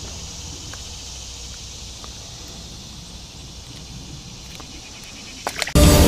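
A steady high hiss of insects in the outdoor background, with a low rumble and a few faint clicks. Loud electronic music cuts in suddenly near the end.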